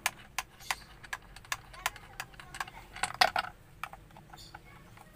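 Light plastic clicks and rattles of a steering wheel's wiring connector and trim being handled, with a louder clatter about three seconds in, over an even ticking of about three a second.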